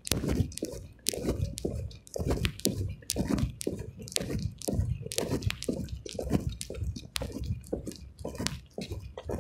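Handling noise from a phone held in the hand: fingers rubbing and clicking against the body and microphone in an irregular run of short bursts.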